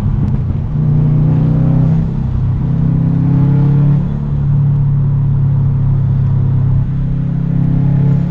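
Subaru WRX STI's turbocharged flat-four running through a freshly installed Tomei Expreme Ti titanium single-exit exhaust, a loud steady drone under way. Its pitch climbs and drops a few times as the engine pulls.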